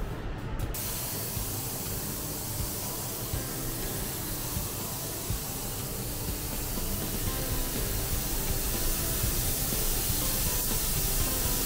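Steady hiss of compressed air from a long-nozzled air blow gun aimed at a car body, starting about a second in and growing a little louder toward the end, over background music.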